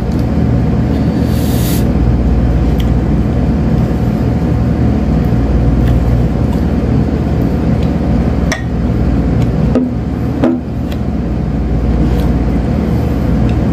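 A steady low machine-like hum that holds at one pitch throughout, with a few faint clicks partway through.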